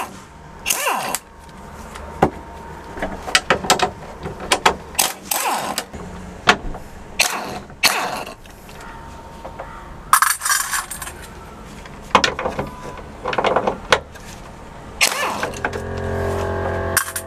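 Irregular clicks, knocks and scrapes of hand work taking apart the interior fittings of a Land Rover Defender's bare metal roof. Music starts near the end.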